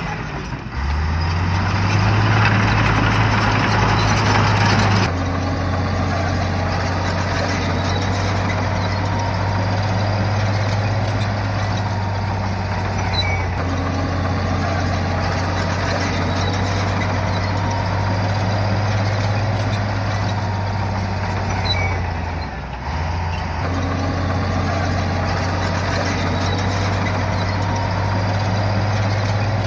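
Bulldozer's diesel engine running under load, a steady low drone. The engine note rises about a second in and is louder for the next few seconds, then settles. It drops off briefly about 23 s in and picks up again.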